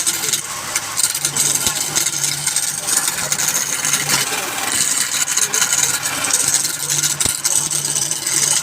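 Wood lathe running while a turning tool cuts the spinning wood: a steady, rough hiss with scattered ticks over the motor's hum, which swells and fades every second or so as the tool bites.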